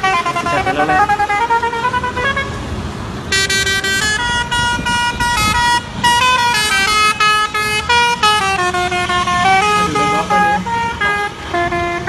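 Multi-tone telolet horn on a heavy-haulage truck playing a quick tune of stepped notes over the rumble of passing traffic, softer at first and much louder from about three seconds in.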